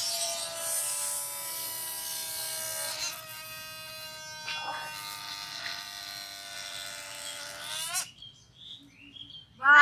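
Rocket balloons deflating in flight: a steady buzz with a hiss as the air rushes out through the neck. The pitch shifts a little around three and four and a half seconds in, and the buzz cuts off suddenly about eight seconds in as the air runs out.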